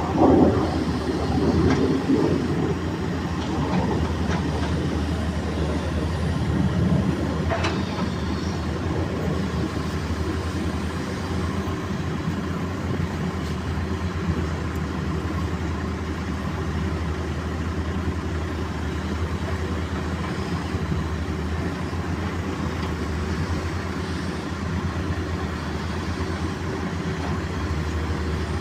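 Diesel engine of a Caterpillar backhoe running steadily, a constant low hum that is rougher and louder for the first few seconds. A single short click sounds about eight seconds in.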